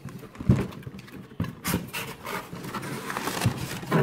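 Cardboard shipping box being opened by hand: a thump about half a second in and a knock from the box and its flaps, then crinkling and rustling of brown kraft packing paper inside the box.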